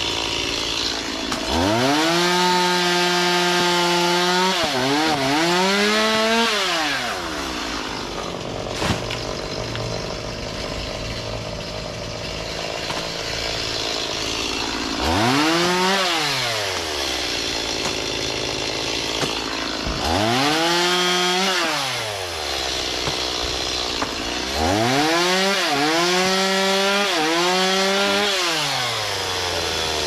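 Petrol chainsaw cutting through the limbs of a fallen breadfruit tree: the engine revs up to full speed and holds while the chain bites, then drops back to idle, four times over, with the longest cuts near the start and near the end.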